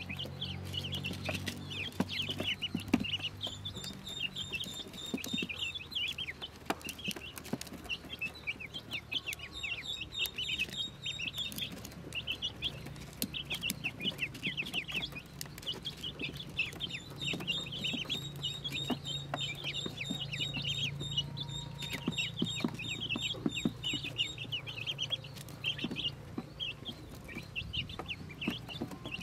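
A brood of newly hatched Pekin ducklings peeping constantly in quick high chirps, with scattered clicks of their bills pecking at a plastic feed dish.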